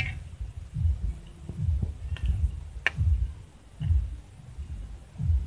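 A plastic spatula stirring thick, creamy chicken stew in a pan: soft low squelching thuds about once a second, with a couple of light clicks of the spatula against the pan.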